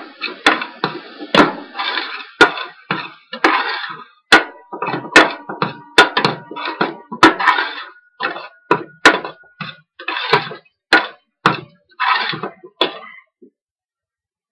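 A metal spoon scraping and knocking against the inside of a stainless steel pot while ground spices are stirred into onions and oil, at roughly two strokes a second. The stirring stops about a second before the end.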